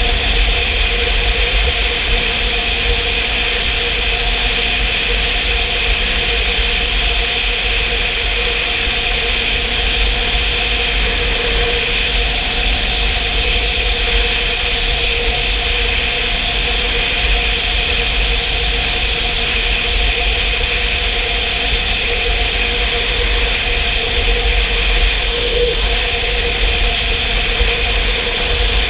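Motorcycle cruising steadily at speed: heavy wind buffeting on the camera's microphone over a steady engine drone and road noise.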